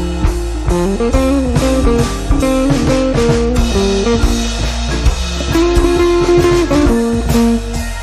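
Background music: a guitar-led tune with a drum kit keeping a steady beat.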